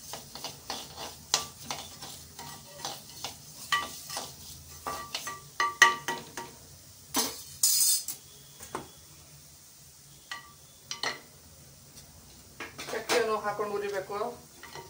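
Metal spatula stirring dry-roasting spices and lentils in an old pressure-cooker pan, scraping and clicking quickly against the metal, with a harsh scrape about halfway through. Near the end comes a brief rattling clatter.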